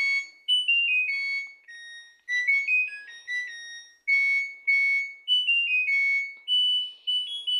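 Washing machine's end-of-cycle chime: an electronic beeper playing a tune of short, clean single notes. The melody signals that the wash cycle has finished.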